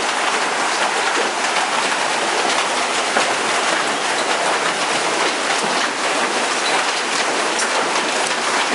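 Heavy hailstorm downpour of rain and hail pelting down, a steady dense hiss thick with small hits.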